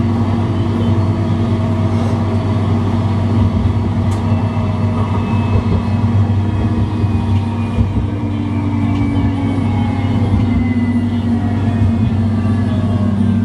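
Tram running along its tracks, heard from inside the front of the car: a steady low electric hum with a faint traction-motor whine that slowly falls in pitch over the second half.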